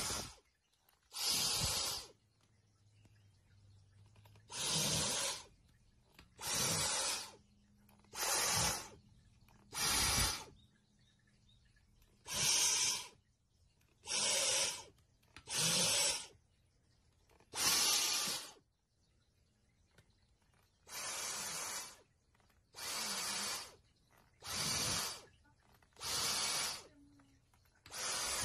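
A cat hissing over and over: about fourteen short hisses, each under a second, coming every one and a half to two seconds with quiet in between. This is a cat's defensive threat display.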